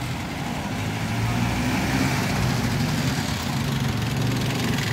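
Jeepney engine running as it drives close past, a steady low engine note that grows a little louder.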